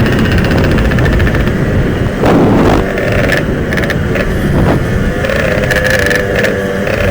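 Yamaha RX-King two-stroke motorcycle engine running hard under way, its revs rising and falling, with a brief louder surge twice.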